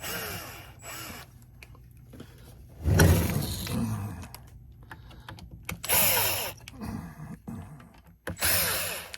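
Sheet-metal bottom cover of a Drake AC4 power supply scraping and squeaking against the chassis as it is worked off, in four short bursts.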